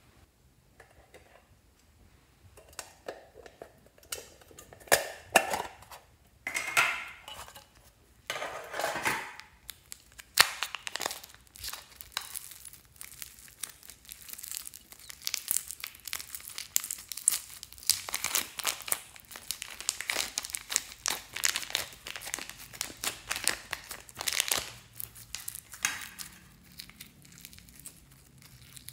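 Hands squeezing and stretching clear slime packed with foam beads: crackling and crinkling, sparse and quiet for the first few seconds, then dense and continuous, easing off near the end.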